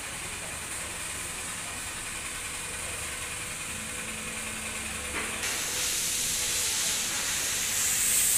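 Texa air-conditioning service station running after being started, with a steady hiss that gets louder about five and a half seconds in and again near the end.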